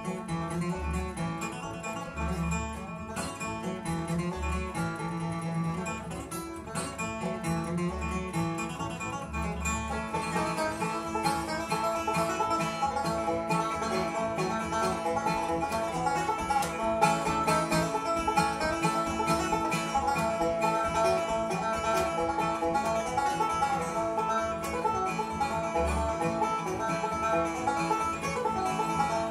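Bluegrass instrumental played live on acoustic guitar and banjo, with no singing. Low bass notes pulse under the picking for the first several seconds, and the playing turns brighter and busier about ten seconds in.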